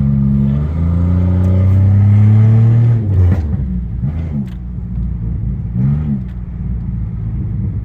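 Tuned, catless Pontiac Grand Prix GT's 3.8-litre V6 pulling hard through a gear, its note rising slowly for about three seconds. It then drops suddenly as the throttle is let off, settling to a lower drone with two short rev blips.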